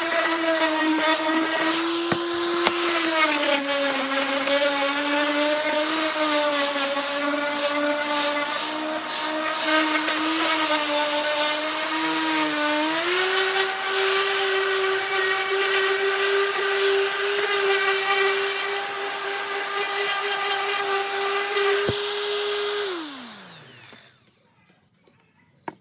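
DeWalt DWE6423 random orbit sander running with a steady motor whine. Its pitch drops a little about three seconds in and wavers, then rises about halfway through. Near the end it is switched off and winds down to a stop.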